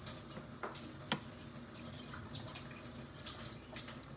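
Faint running water from a kitchen tap, with a few light clicks of a metal spoon.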